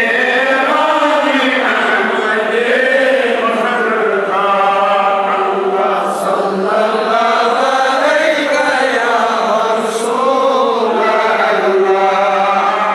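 Men's voices chanting Darood, salutations on the Prophet, in a slow melodic recitation whose pitch rises and falls in long phrases.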